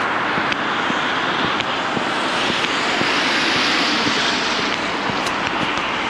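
Steady rushing noise of a snowy city street that swells and fades over a few seconds, as from traffic or something passing. Faint footsteps tick about twice a second throughout.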